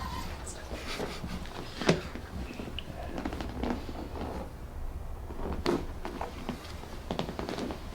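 Rustling and scattered light knocks as people shift and reposition on a chiropractic treatment table, with one sharper click about two seconds in and another near the six-second mark. A low steady hum runs underneath.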